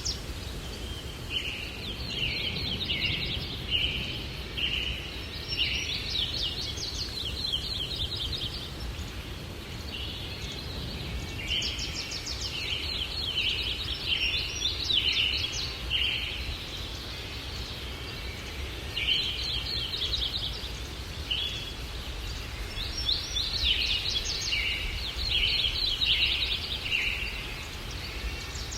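Small songbirds chirping in bursts of quick, repeated notes with short pauses between them, over a steady low rush of breeze.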